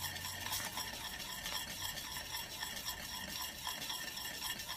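A spoon stirring thick ube halaya (purple yam jam) around a stainless steel pan in steady, repeated strokes over a constant faint hiss. The mixture has thickened and is kept moving so that it does not catch and burn on the bottom.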